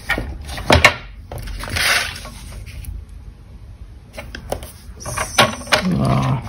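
Cardstock being scored on a scoring board and then handled: a few sharp clicks and taps, a short scrape about two seconds in, and paper sliding and rustling with more taps near the end.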